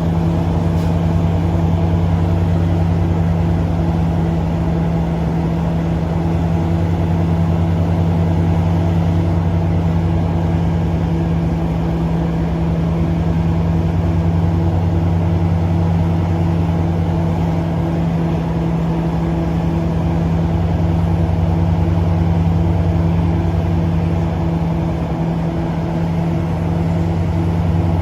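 NJ Transit ALP-45DP locomotive's twin Caterpillar V12 diesel engines running at idle: a steady low drone.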